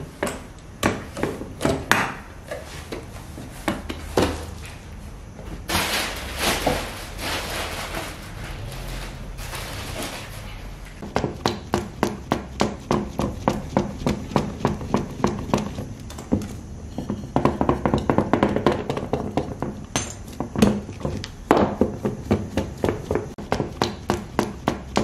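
Hands working patir dough on a metal turntable plate: a few scattered knocks at first, then a steady run of short thuds about four a second from hands pressing and patting the dough.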